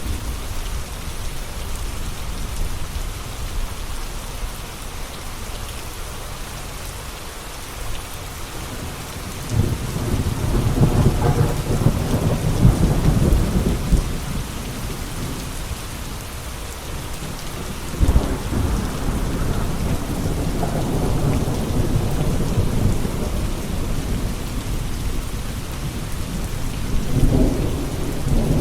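Steady rain falling, with rolls of thunder rumbling three times, starting about a third of the way in, at about two-thirds, and near the end.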